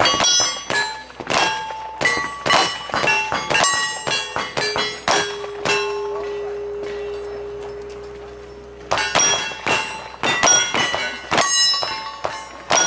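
Steel targets being hit in quick succession, each sharp hit leaving a short metallic ring at its own pitch. In the middle one plate rings on, fading slowly over about four seconds, before another quick run of hits.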